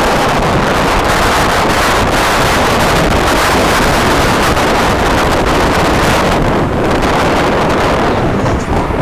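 Heavy wind rushing over the microphone: a loud, steady roar of wind noise.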